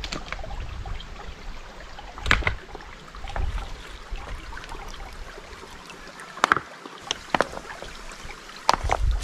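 A few sharp clicks and knocks, four in all and spread out, over a faint low outdoor rumble.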